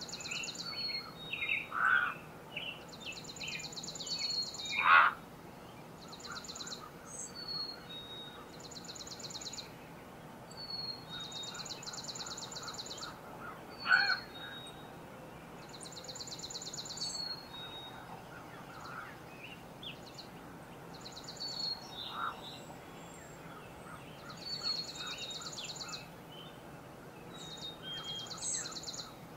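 Woodland songbirds calling in spring: a high, dry trill repeated about every two seconds, mixed with shorter high notes, and a few louder, lower calls in the first five seconds and again about 14 seconds in.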